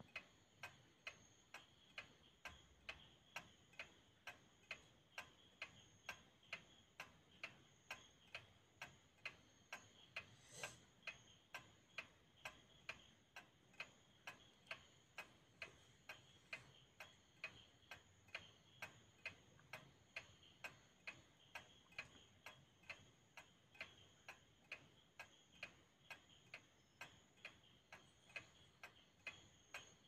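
Scientific brand pendulum wall clock ticking faintly and steadily, its escapement clicking about twice a second; no chime is struck.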